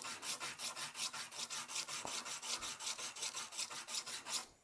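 Quick, even back-and-forth strokes of hand sanding or filing on a plug-welded steel bolt head, about six strokes a second, dressing down the weld. The strokes stop near the end.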